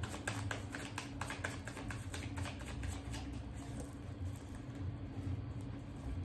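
Tarot cards being shuffled by hand: a rapid run of light clicks and flutters that thins out about halfway through, over a low steady hum.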